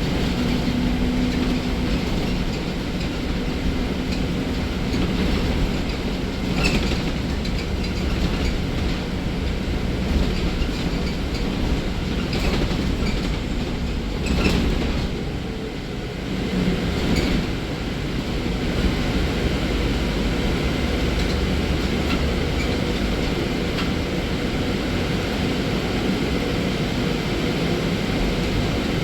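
BYD D11B battery-electric articulated bus in motion, heard from inside: steady road rumble and tyre noise with knocks and rattles from the body and fittings every few seconds, and a faint electric motor hum in the first few seconds.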